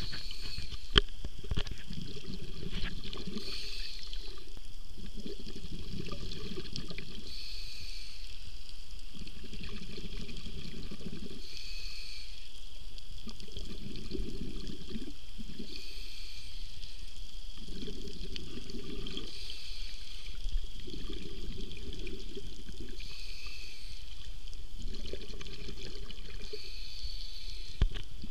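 Scuba diver breathing through a regulator underwater: a short hiss on each inhale, then a longer low rush of exhaled bubbles, repeating about every three to four seconds.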